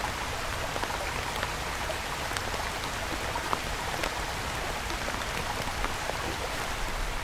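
Steady rain falling, with scattered light ticks of drops landing.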